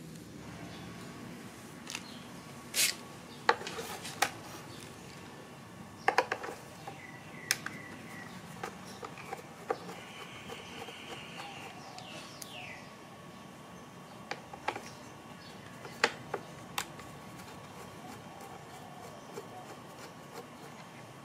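Scattered light clicks and taps of plastic parts of a Hyundai Veloster folding side mirror being handled during disassembly, with a few sharper knocks and a brief squeak around the middle.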